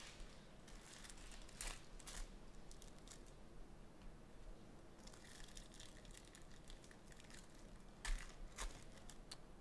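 Crinkling of a foil trading-card pack wrapper and cards being handled, as scattered soft crackles with a few louder ones about two seconds in and about eight seconds in.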